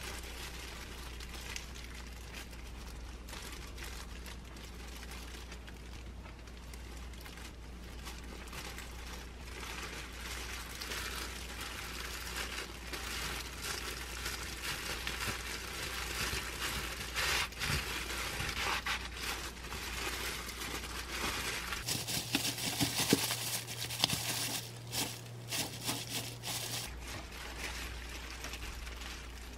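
Disposable plastic gloves crinkling and rustling as hands spread fillings over laver and roll gimbap in a bamboo mat. Sharper clicks and taps come about three quarters of the way through.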